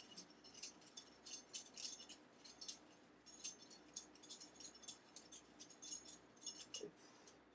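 Balisong (butterfly knife) being flipped: its loose metal handles and blade clink and jingle against each other in quick, irregular clicks.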